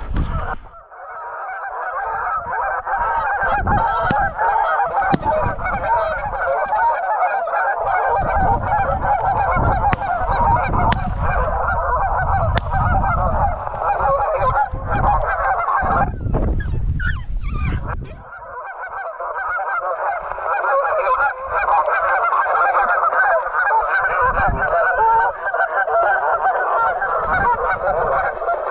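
A large flock of Canada geese honking continuously, many calls overlapping, dropping off briefly a little past halfway, with a low rumble under the calls through the middle.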